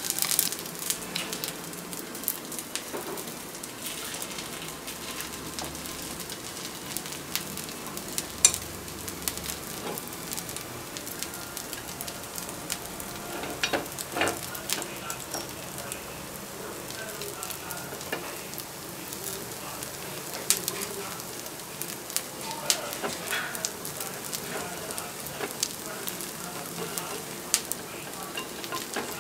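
Paniyaram batter balls frying in oil in a cast-iron paniyaram pan, sizzling steadily, with frequent sharp clicks of a skewer tapping and scraping the pan as the balls are turned.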